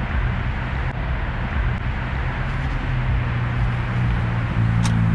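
A motor running steadily, with low hum and a rushing noise over it, a little louder near the end.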